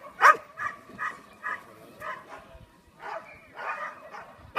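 A dog barking in short repeated barks: one loud bark just after the start, then several fainter barks about every half second that die down after a couple of seconds.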